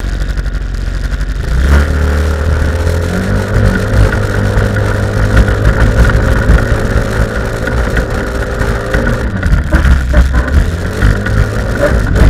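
PGO 250 buggy's engine, with a Malossi CVT variator, running hard close to the onboard camera, its revs rising and falling over the lap.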